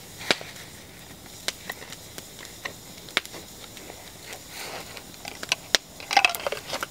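Mora Garberg knife scraping and notching a wooden baton to mark it, among scattered sharp pops and cracks from a small wood campfire.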